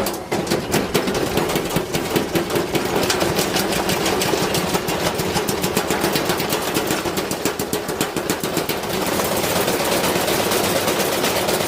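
Metal tools clattering and banging inside a running washing machine drum: a rapid, continuous rattle of impacts that turns denser and steadier about nine seconds in.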